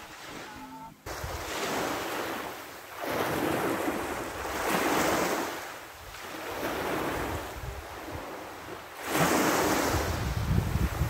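Small waves breaking and washing up a sand-and-pebble shore, the surf swelling and fading about four times, with wind buffeting the microphone.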